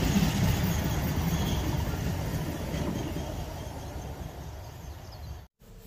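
Empty flat wagons at the tail of a freight train rolling past, a rumbling rattle of wheels on rails that fades steadily as the last wagon goes by, then cuts off suddenly near the end.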